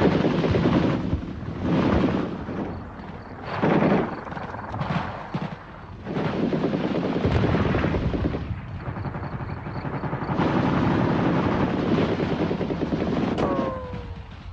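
Battle gunfire from automatic rifles: several short bursts, then a longer stretch of dense firing. A brief falling whine comes near the end.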